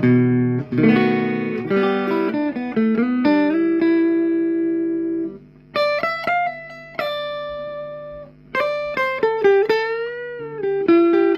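1960s Symphonie dreadnought acoustic guitar being played: chords for the first few seconds, then, after a brief pause, single notes and short runs picked and left ringing, one note bending slightly near the end.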